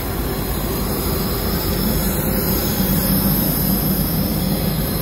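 Steady rushing roar of an airliner in flight, heard from inside its lavatory, with a low hum running beneath it.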